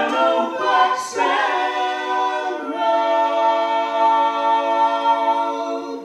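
Several men's voices singing in close harmony with no instruments heard, settling about three seconds in into one long held chord that cuts off at the end.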